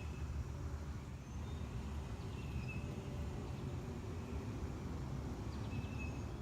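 Steady low outdoor rumble, like distant traffic, with a few faint short bird chirps about every three seconds.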